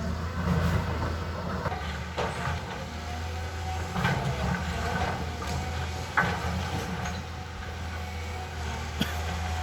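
Caterpillar excavator's diesel engine running steadily, with a few sharp metallic knocks and clanks from the machine's working parts.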